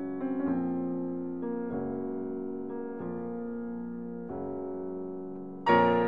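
Slow piano music, with held notes and chords changing about once a second and a louder chord near the end.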